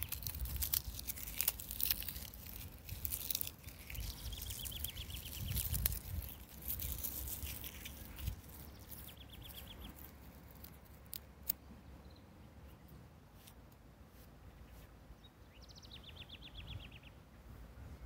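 Gusty wind buffeting the microphone, with crackling clicks mostly in the first half, easing after about ten seconds. A small bird sings a short rapid trill three times, the last one starting higher and falling in pitch.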